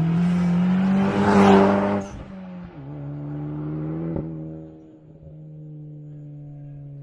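Honda Civic Type R FK8's turbocharged 2.0-litre four-cylinder, fitted with an HKS L-Spec exhaust and SQIV blow-off valve, accelerating past with its note rising, then a loud hiss swells about a second and a half in as the throttle lifts. The engine note drops suddenly about two seconds in, and the car runs on at a steadier, lower pitch as it pulls away and fades.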